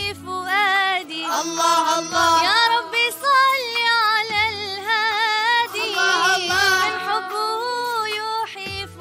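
A girl singing an Arabic devotional nasheed solo, with long ornamented runs and wavering, melismatic notes, over a low recurring beat.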